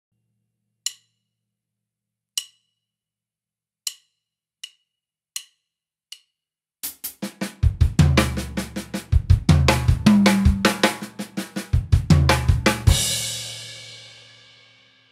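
A count-in of six sharp clicks, the last three twice as fast. Then a linear drum fill is played on an acoustic drum kit at half tempo: single strokes passed between hi-hat, snare, toms and kick drum. It ends on a cymbal crash, about 13 seconds in, that rings out and fades.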